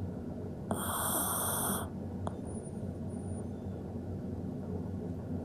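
A sleeping toy poodle snoring: a steady low rumble of breathing, with one loud rasping snore about a second in that lasts about a second and carries a high whistle.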